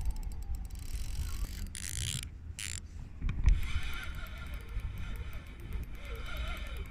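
Daiwa Certate spinning reel being cranked, a run of fine rapid ticks as line is wound in on a hooked trout, with a steady low rumble over the microphone and two short rustling bursts about two seconds in.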